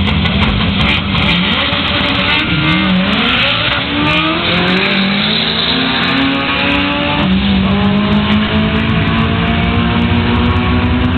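A Honda CRX and a Honda Civic launching off the drag-strip start line and accelerating hard down the track. Their four-cylinder engines rev up and drop back at each gear change, several times, then pull with a slowly rising note as the cars run away down the strip.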